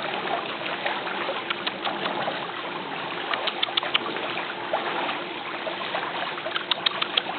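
Steady rushing outdoor noise like running water, with a few bunches of short, sharp clicks.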